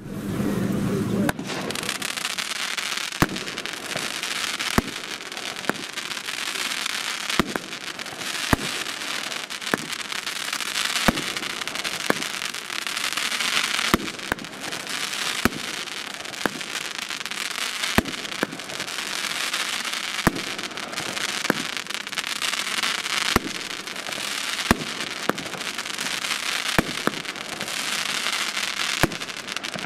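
Nico 'Time Rain' 13-shot 30 mm fireworks battery (cake) firing: sharp shots every second or two, over a dense continuous crackle from the bursting effects. It starts about a second and a half in.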